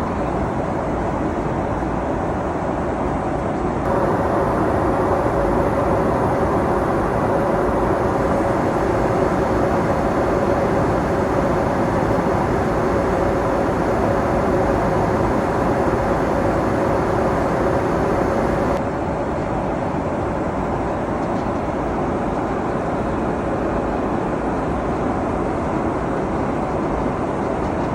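Steady cabin noise of a Boeing 777-300ER in flight. From about four seconds in until near nineteen seconds it is a little louder, with a steady hum on top, and then it drops back suddenly.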